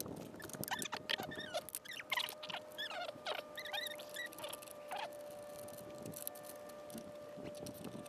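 Socket wrench clicking and scraping on the bolts of a Piaggio MP3 400 scooter's transmission cover. Short high squeaks run through the first five seconds, then stop.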